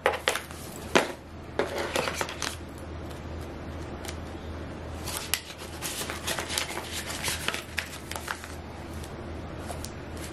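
Paper and cardboard packaging handled by hand: irregular rustling, sliding and light tapping as the paperwork sleeve is lifted out of the box tray, over a low steady hum.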